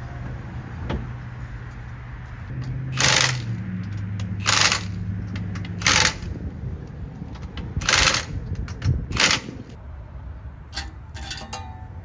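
Cordless power tool run in five short bursts against the car's rear bumper, driving or backing out fasteners, with a few small metal clinks near the end.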